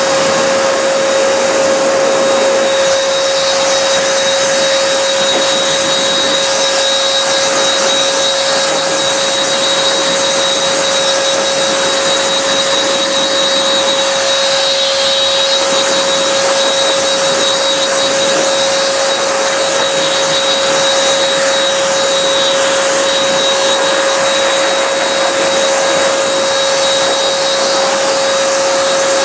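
Pet quick dryer's blower running steadily: a constant rush of air with an even, unchanging whine.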